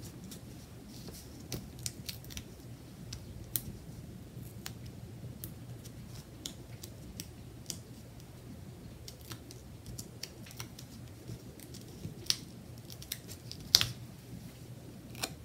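Scattered light clicks and ticks of fingers peeling Stampin' Dimensionals foam adhesive pads off their backing sheet and pressing them onto cardstock. The sharpest tick comes near the end.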